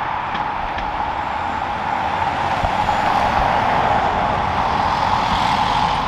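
Jet airliner engine noise, a steady rushing roar that swells slightly through the middle, with wind buffeting the microphone in low thumps.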